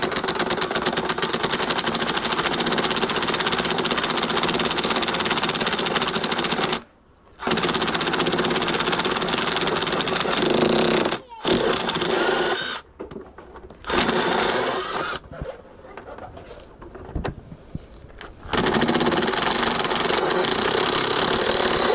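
A handheld power tool running in long stretches with a fast buzzing rattle. It stops briefly and starts again several times, with shorter bursts in between.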